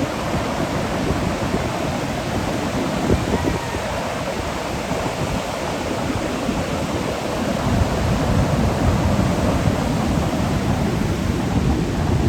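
Heavy ocean surf breaking and washing in, a steady rush with deep rumble that swells louder about two-thirds of the way through.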